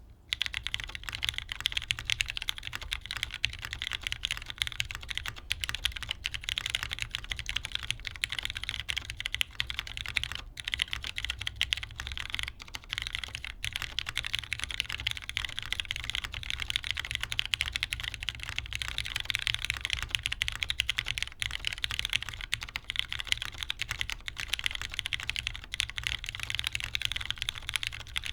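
Continuous fast typing on a custom tenkeyless mechanical keyboard: lubed, broken-in Cherry MX Brown tactile switches in a top-mounted polycarbonate plate under GMK ABS keycaps, giving a dense stream of keystrokes that starts about half a second in.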